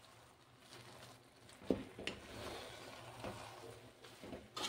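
A spoon stirring and turning cooked biryani rice in a metal pot: faint soft scraping with a few scattered light clicks of the spoon against the pot.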